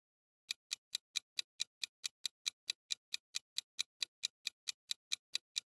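Countdown-timer ticking sound effect: a clock-like tick repeated evenly, about four to five ticks a second, starting about half a second in and stopping just before the end.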